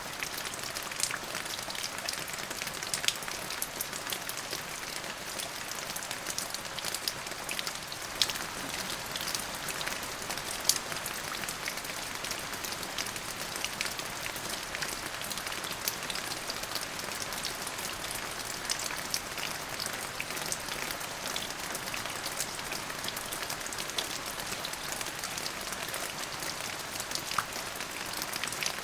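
Steady rain falling, a continuous hiss with many close, sharp drops ticking on a hard surface and a few louder single drops now and then.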